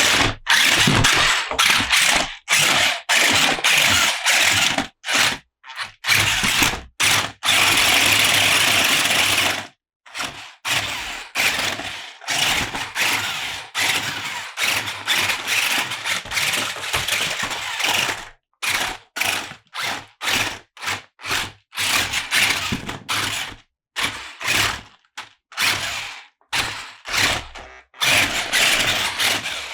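Plastic toy packaging and plastic toy parts being handled and unpacked, crackling and clicking in many short bursts broken by sudden silent gaps.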